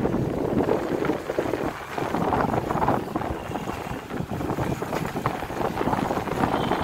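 Wind buffeting the microphone over the running of a motorbike being ridden, a continuous rough rumble that swells and dips.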